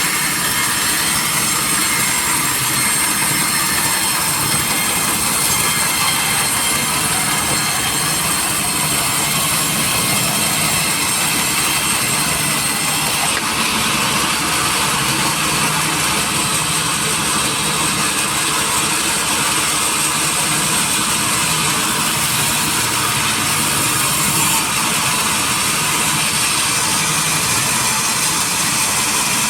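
Sawmill machinery running with a steady, loud mechanical noise; its sound shifts slightly about 13 seconds in.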